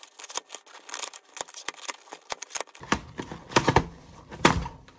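Layers of an 18 cm giant plastic 3x3 Rubik's cube being turned by hand through an algorithm: a run of quick plastic clicks and scrapes, with a few louder clacks a little past halfway. The cube is dry and unlubricated.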